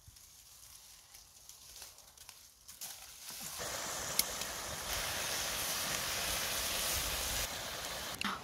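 Cabbage sizzling as it fries in a metal wok over a wood fire. The sizzle starts about a third of the way in, after a few quiet seconds with faint scattered clicks.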